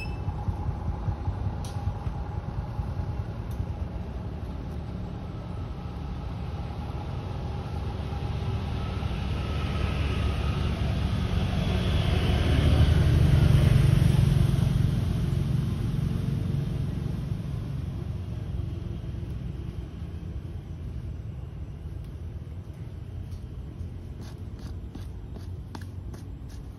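A motor vehicle passing: a low rumble that swells to its loudest about halfway through, then slowly fades away.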